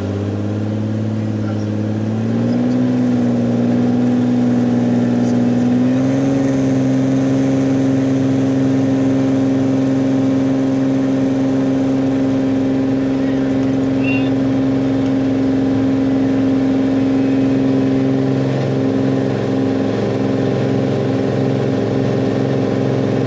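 Cirrus SR22's six-cylinder piston engine and propeller at full takeoff power during the takeoff roll, heard from inside the cockpit. The pitch rises over the first few seconds as the engine comes up to full power and the plane accelerates, then holds steady, wavering slightly near the end.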